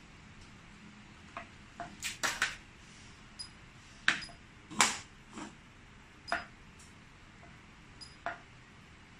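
A few short, high electronic beeps from the G2C touch-keypad alarm panel, amid sharp clicks and knocks of hard plastic being handled and set down. The loudest knocks come about four and five seconds in.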